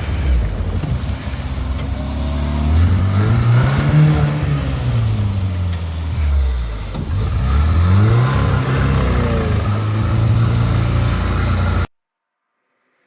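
A motor vehicle's engine revving: the pitch climbs to a peak, falls away, then climbs and falls again, and the sound cuts off suddenly near the end.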